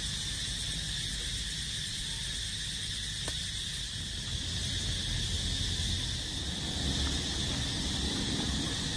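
Steady chorus of insects, an even high-pitched drone, with some low rumble underneath that grows a little in the second half.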